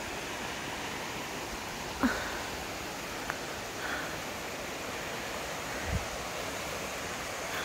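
Steady rush of Tinker's Creek running over shallow rocky rapids, with a short knock about two seconds in and a dull thump near six seconds.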